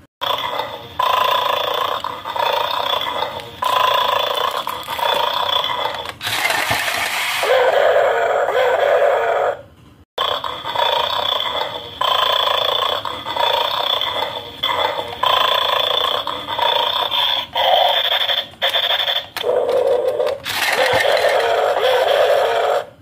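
Electronic dog growling and barking played through the small speaker of a plastic bulldog candy-guard toy, in short repeated bursts broken by brief gaps where the clips change.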